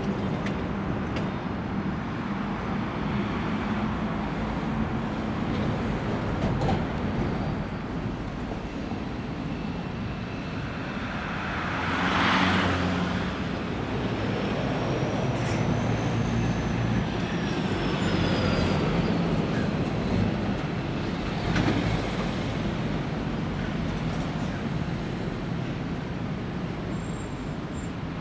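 ICE 4 high-speed electric multiple unit passing, with the steady low rumble of its coaches running over the track. A louder rushing swell comes about twelve seconds in.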